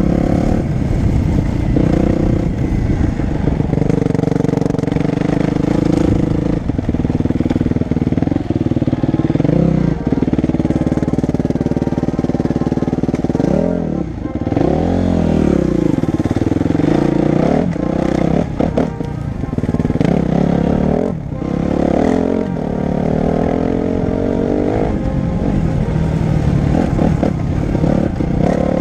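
Dirt bike engine heard from the rider's helmet, running hard with its pitch rising and falling as the throttle is opened and closed, dropping briefly several times and climbing again.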